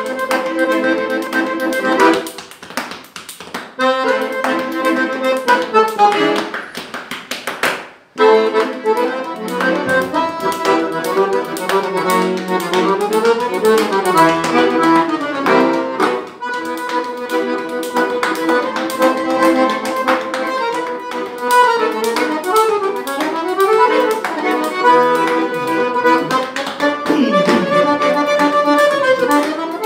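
Piano accordion playing a lively tune in running notes, breaking off for a moment about eight seconds in. Frequent sharp slaps keep time over it, from a man slapping his chest and belly as body percussion.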